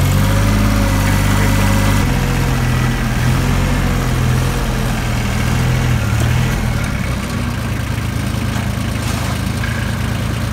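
Farm tractor engine running steadily as the tractor travels. Its note shifts about two seconds in and settles lower and a little quieter from about seven seconds on.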